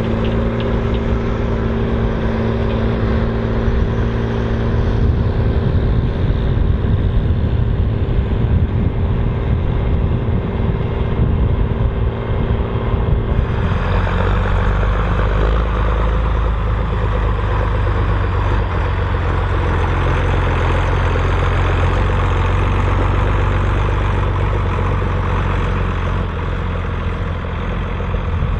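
Volvo BM 2654 tractor's diesel engine running steadily under load while ploughing. About halfway through the sound changes suddenly to a deeper, rougher running.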